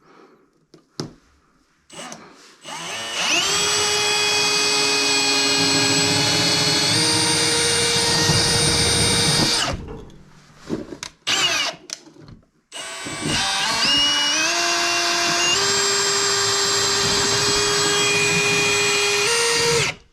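Handheld power drill running in two long bursts with short pauses between, its whine stepping up in pitch partway through each run.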